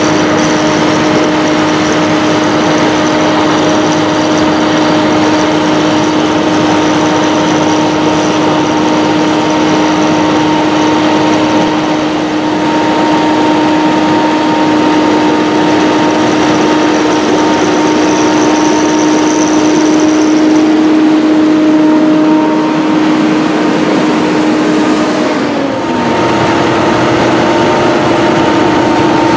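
John Deere 7930 tractor's six-cylinder diesel engine running hard and steady while pulling a power harrow through dry soil. The drone holds an even pitch, sags briefly near the end, then picks up again.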